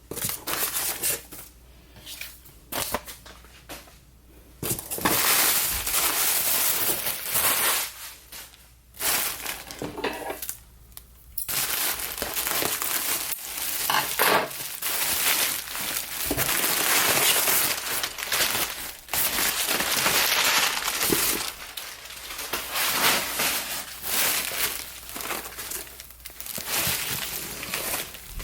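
Packing material crinkling and rustling as candles are unwrapped from a shipping box, in bursts at first, then almost without a break over the second half.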